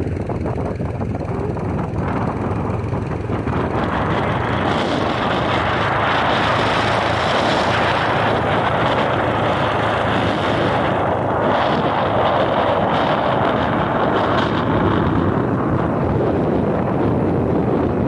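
Motorcycle riding along at steady speed, engine running under a rush of wind over the microphone. The wind noise swells from about four seconds in and eases off near the end.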